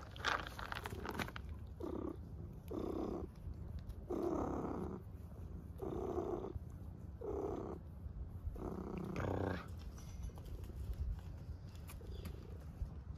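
Black cat purring as it is stroked on the head, the purr coming in repeated stretches roughly every second and a half. A brief rustle of handling sounds in the first second.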